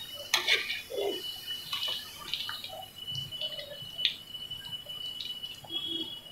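Potato sticks bubbling and crackling in hot oil in a wok, with scattered pops, during the first light fry of double-fried French fries. The metal wire strainer scooping them out adds a few sharp clicks, the loudest near the start and about four seconds in.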